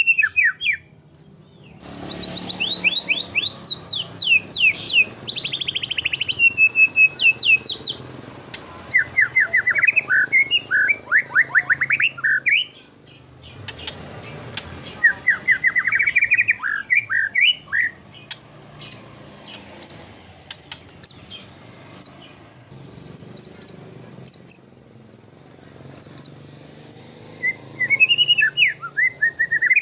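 White-rumped shama (murai batu) singing a varied song full of isian, the mimicked fill-in phrases. The phrases are rapid trills and quick sweeping notes, broken by short pauses, with a run of short, sharp high notes in the second half.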